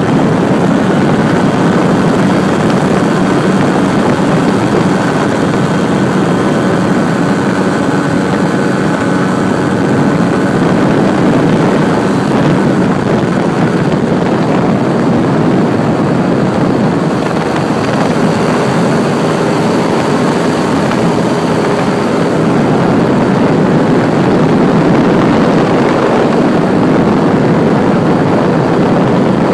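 Steady engine and propeller noise of an aircraft, heard from on board, with a few faint steady tones above it.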